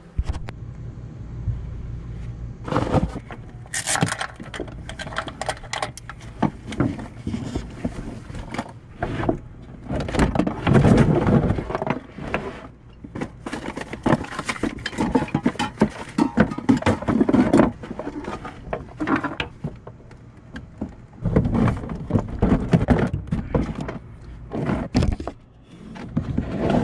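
Rummaging through a cluttered storage compartment: spray cans, boxes and a plastic storage bin knocking, clattering and scraping as things are pulled out and moved around.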